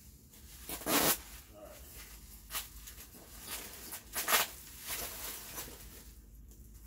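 Bubble wrap crinkling and being pulled and ripped apart by hand, with sharp ripping sounds about a second in and again around four seconds in.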